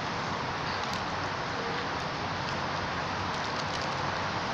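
Steady outdoor background noise, even and unchanging, with a few faint light ticks over it.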